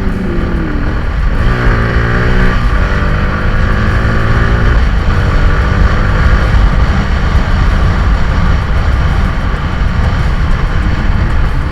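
Motorcycle engine pulling up through the revs while riding, its pitch rising about a second and a half in and then holding, under a heavy low wind rumble on the microphone.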